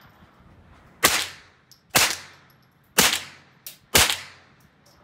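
Four shots from a Tippmann M4-22 semi-automatic .22 LR rifle, fired about a second apart, each sharp crack followed by a short fading ring.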